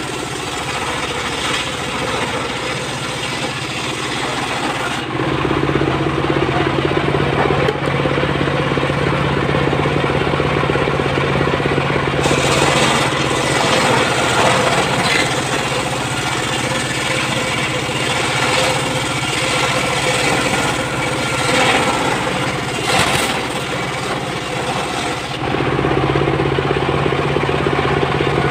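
Single-cylinder diesel engine running steadily under load, driving a homemade table circular saw as it rips lengthwise through a teak log. The blade's rough cutting noise comes and goes as the log is fed through.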